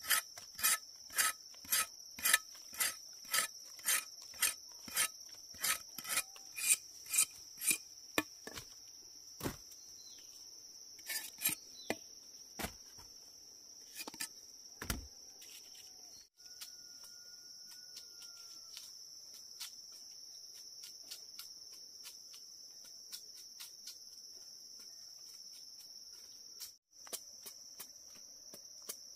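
Insects, crickets or cicadas, keep up a steady high-pitched drone. Over it comes a run of sharp, rhythmic scraping or chopping strokes, about two a second, for the first eight seconds. After that only a few scattered strokes follow.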